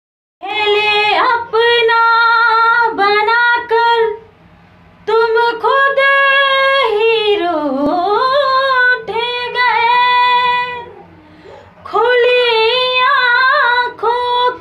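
A woman singing solo with no accompaniment, long held and gliding notes in phrases, with a short break about four seconds in and another about eleven seconds in.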